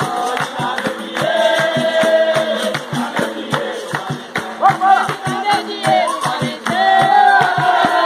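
Capoeira roda music: an atabaque drum keeps a steady beat under group singing and hand clapping, with the sung line rising in strength near the end.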